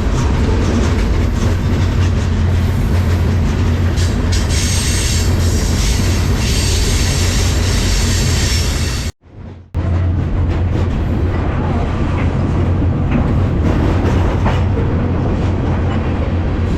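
Freight train rolling at speed, heard from aboard a car: a loud, steady rumble of wheels and rattling car body, cut off briefly by a drop-out about nine seconds in before it resumes.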